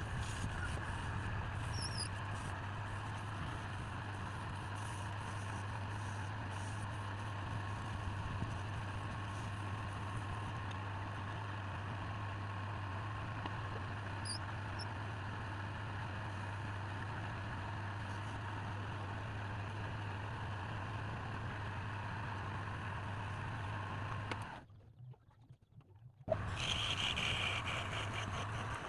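A motorised machine running steadily with a low hum and a broad whirring noise. It drops out for about two seconds near the end, then comes back abruptly.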